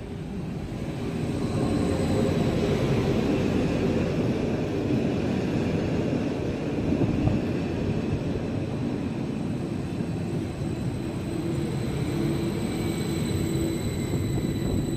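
Stadler FLIRT electric multiple unit pulling into a station platform and rolling past close by: steady running and wheel noise that swells over the first two seconds, with a faint whine from the drive easing down in pitch near the end as the train slows.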